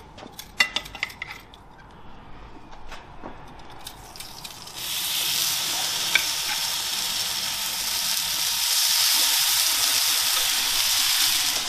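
Salmon fillets sizzling as they go onto the hot flat plate of a Weber Baby Q gas barbecue, preheated and turned down to medium. A few light clicks come first, then a steady sizzle starts about five seconds in and holds.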